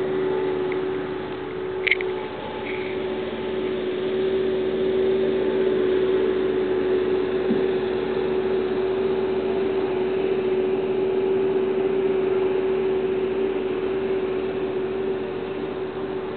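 Steady mechanical hum with one constant tone and hiss beneath it, and a single short click about two seconds in; no hoofbeats stand out.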